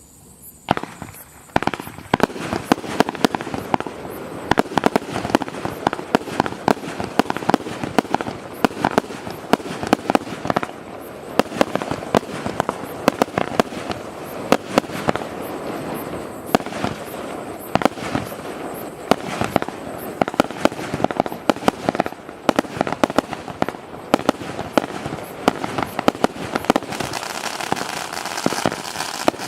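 Pyrotrade Exorzist 3 compound fireworks battery (100 shots, 20 mm calibre) firing: a fast, unbroken string of launch bangs and bursting crackles, faint for the first second or so, then dense and loud throughout.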